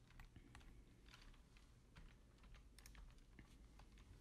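Faint, scattered clicks of a computer keyboard and mouse in use, keystrokes and mouse-wheel scrolling, over a low steady hum.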